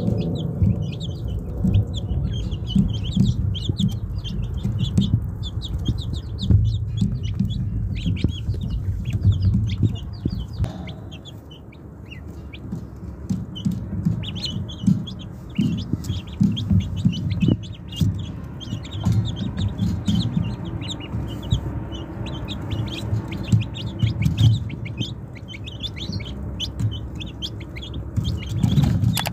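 A group of ducklings peeping continually in short high calls while they peck at a cooked potato, over low knocks and scuffling of bills and feet in the grit close to the microphone.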